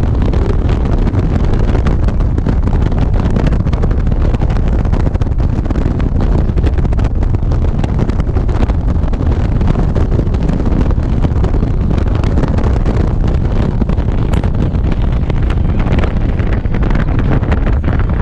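Steady wind rush buffeting the microphone of a camera on a motorcycle cruising at road speed, with a deep rumble underneath and no distinct events.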